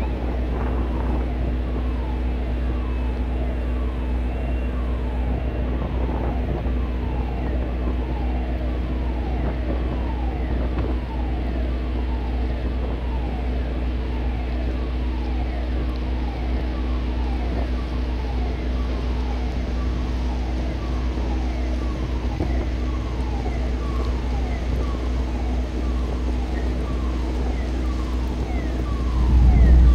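Steady low rumble and hum of harbour machinery or idling engines, with a run of falling whistle-like sweeps repeating about once or twice a second over it.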